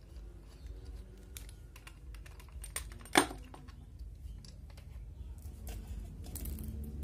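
Small scattered clicks and taps of a screwdriver working on the metal fittings of an air rifle being taken apart, with one sharp, louder click about three seconds in.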